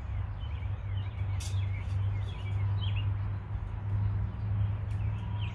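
Small birds chirping intermittently over a steady low rumble.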